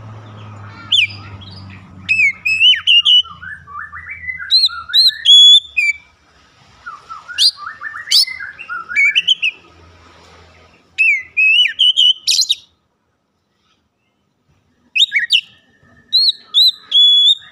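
Oriental magpie-robin (kacer) singing loud, varied phrases of whistled and gliding notes mixed with quick chirps. It sings in several bursts, with a silent gap of about two seconds past the middle.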